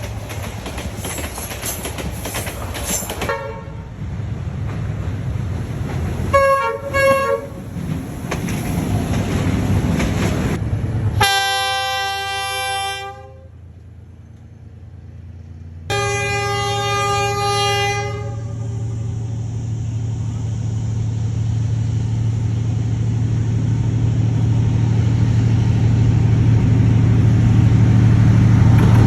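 Vietnam Railways D19E diesel locomotive horns sounding in separate clips: two short toots about a quarter of the way in, a longer blast a little before the middle, and another a little after. Around them is train noise: clatter at the start and a steady low rumble that grows louder toward the end.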